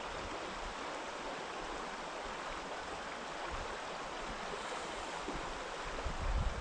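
Steady rush of flowing river water. A short low rumble comes in near the end.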